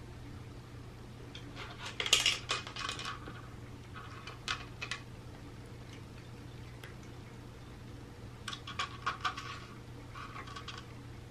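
Dry cat food pieces rattling and clicking against the plastic tiers of a Catit Senses 2.0 Food Tree as a cat paws and noses the kibble out, in four short spells of clatter, the loudest about two seconds in.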